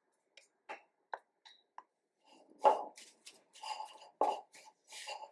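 A spatula scraping condensed milk out of a small bowl with a few light taps, then stirring a stiff mixture of desiccated coconut, icing sugar and condensed milk in a ceramic mixing bowl, scraping and knocking against the bowl in uneven strokes that grow louder from about halfway.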